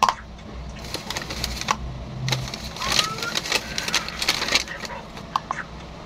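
A metal spoon clicking, knocking and scraping against a clear plastic cup as avocado flesh is scooped into it. The sound is an irregular string of short clicks, with a brief rising squeak about three seconds in.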